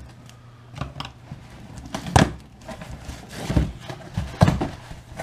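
A cardboard shipping box being opened by hand: packing tape slit and the flaps pulled open, with rustling cardboard and a handful of sharp knocks and scrapes, the loudest about two seconds in and near the end.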